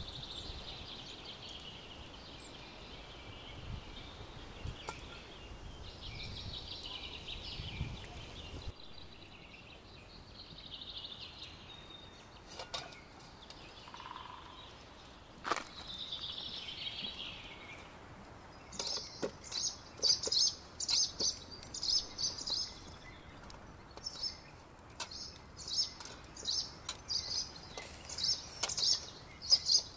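Small birds chirping and singing, a warbling song in the first half, then a run of quick, loud, repeated chirps in the second half. A few sharp metallic clicks come from a fork tapping against a wire grill and a steel bowl as grilled chicken pieces are pulled off.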